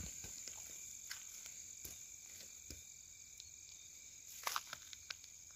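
Crickets trilling steadily in a high, faint chorus, with a few soft ticks and a brief rustle about four and a half seconds in.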